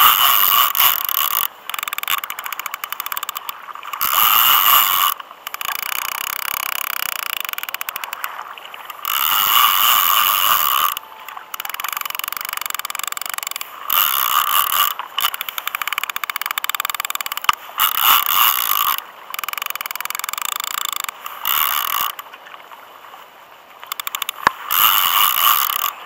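Fishing reel's drag clicking and whirring in repeated bursts of a second or two as a hooked fish pulls line off against it; the angler takes the fish for a shark.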